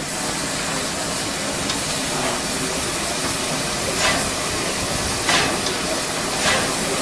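A steam locomotive standing at the platform, with a steady loud hiss of escaping steam. From about four seconds in, a louder puff of steam comes roughly every second and a bit, three times.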